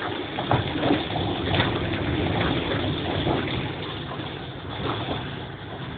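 A car driving through heavy rain, its tyres running through standing water on a flooded road, heard from inside the cabin. A steady wash of water noise with irregular sharp splashes, easing a little after about four seconds.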